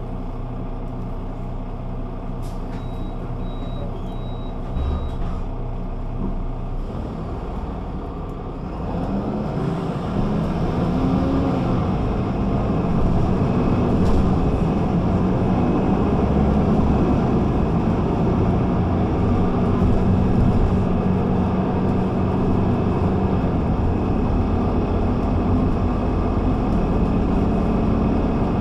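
Güleryüz Cobra GD 272 city bus engine idling steadily, with a short run of high beeps about three seconds in. From about nine seconds the bus pulls away and the engine runs louder as it accelerates.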